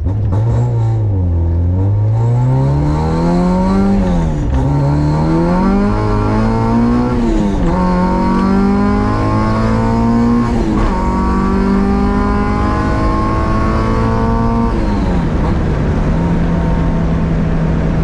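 H2B-swapped Honda Civic's naturally aspirated Honda H-series four-cylinder engine, heard from inside the cabin, accelerating hard through the gears: the revs climb and drop sharply at each upshift every three to four seconds. Near the end it settles to a steady cruise.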